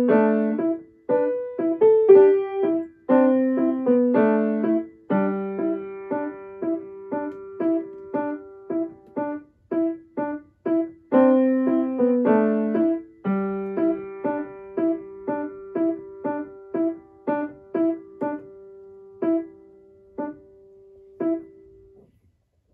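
Grand piano played in quick figures of short, separate notes. In the second half a low note is held under repeated higher notes that come further apart and fade, and the music stops about a second before the end.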